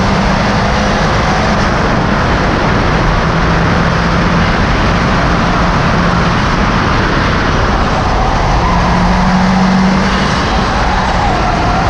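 Subaru Impreza WRX STi's turbocharged flat-four engine running hard at racing speed, buried in loud, steady tyre, road and wind noise from a camera mounted low on the outside of the car.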